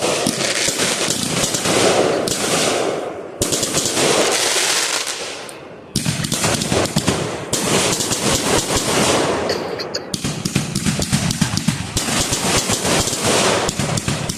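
Fireworks going off in rapid crackling volleys, many sharp pops a second, with fresh barrages starting suddenly about 3.5 and 6 seconds in and again near 10 seconds.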